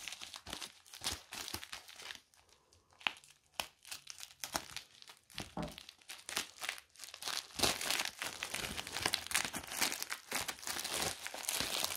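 Plastic packaging crinkling and rustling in the hands as a package is handled and opened. There is a short lull about two seconds in, and the crinkling becomes denser and louder in the second half.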